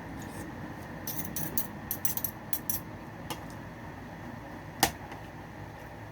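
Cutlery tapping and scraping on a plate while eating: a run of quick light clicks between about one and three seconds in, then one sharper knock near the five-second mark, over a steady low background hum.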